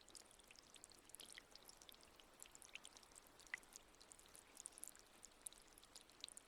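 Faint trickling water: a small fountain's stream with many small, irregular drips and plinks, one a little stronger about three and a half seconds in.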